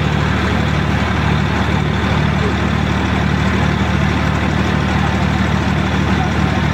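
Diesel engines of a Swaraj tractor and a John Deere tractor running loud and steady, with a regular throbbing pulse, as they pull in a tractor tug-of-war.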